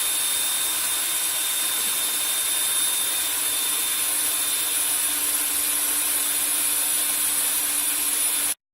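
A machine running steadily: an even, loud hiss with a high whine, which cuts off abruptly near the end.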